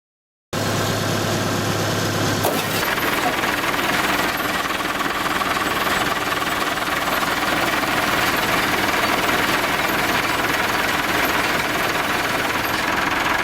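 John Deere 567 round baler running, driven by a tractor, with a loud, steady mechanical clatter. The sound starts abruptly about half a second in.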